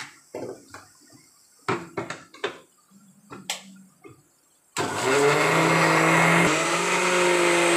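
Electric mixer grinder: a few clatters and clicks as its steel jar is closed and set on the base, then about five seconds in the motor switches on and runs loudly and steadily, grinding green chillies and coriander into a paste.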